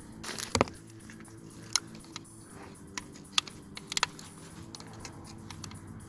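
Scattered sharp clicks and taps, a second or so apart, from a screwdriver working on the plastic plug of a crankshaft position sensor to release its latch, over a faint steady hum.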